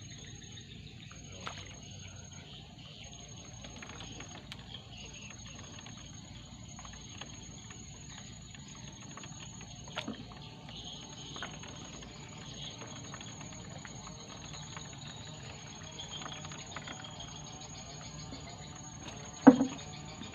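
Faint steady outdoor background noise with scattered small clicks and taps, and one sharp knock near the end.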